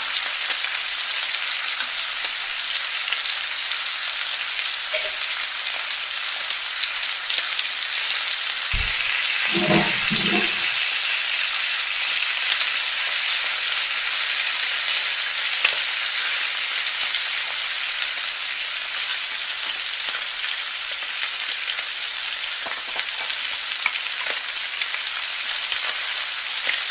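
Chopped beetroot, moong dal and onions sizzling in oil in a nonstick kadai as they are stirred: a steady frying hiss. A few dull knocks come about ten seconds in.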